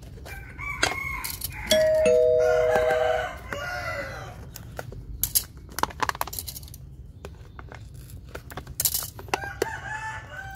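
A two-tone ding-dong chime like a doorbell, a high note then a lower one, about two seconds in, overlapped and followed by a rooster crowing. Then a string of sharp clicks and snaps from plastic cups being cut for drainage holes.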